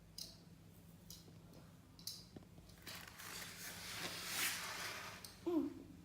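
Hard plastic toy track pieces being handled: a few sharp clicks, then a longer rustling scrape about three seconds in. A young child gives a short vocal sound near the end.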